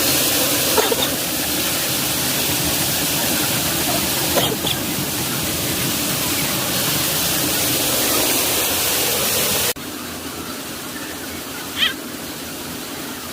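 Waterfall rushing in a steady, loud hiss that drops abruptly to a quieter rush near the end.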